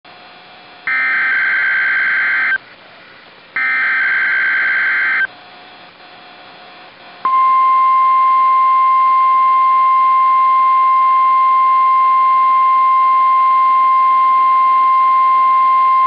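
NOAA Weather Radio SAME data bursts: two short, shrill digital bursts, each about a second and a half long, with a pause between them. A few seconds in, the steady 1050 Hz warning alarm tone starts and holds for about nine seconds, as part of a Required Weekly Test.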